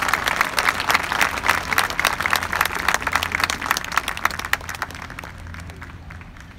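Crowd clapping, with dense applause that thins out and fades over the last second or two.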